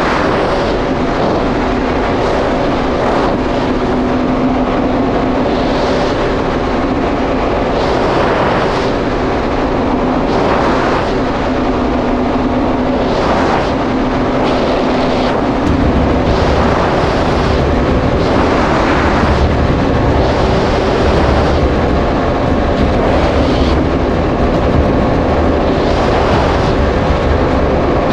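Yamaha GP1800R SVHO personal watercraft's supercharged four-cylinder engine running steadily at low speed, a constant drone with a whoosh about every two seconds. The low rumble gets deeper and louder about halfway through.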